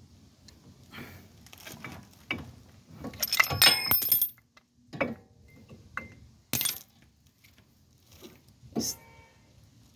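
Small metal parts and tools being handled: scattered clinks, a jangling, ringing clatter in the middle, then two sharp metallic knocks.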